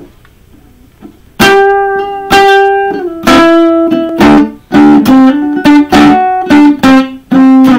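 A guitar plays single plucked notes, starting about a second and a half in: the first few ring out and step down in pitch, then a quicker run of short notes follows.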